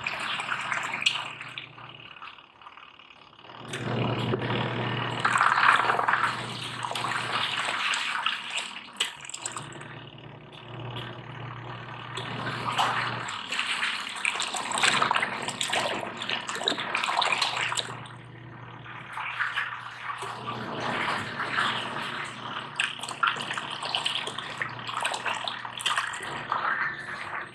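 Mini washing machine washing a small load in its wash tub: water churns and sloshes while the motor hum cuts out and restarts every few seconds.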